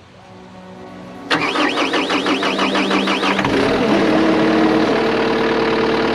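Cat 303.5E2 CR mini excavator's diesel engine starting: a faint rising hum, then about a second in the starter cranks with a rapid repeating churn. The engine catches about three and a half seconds in and runs steadily.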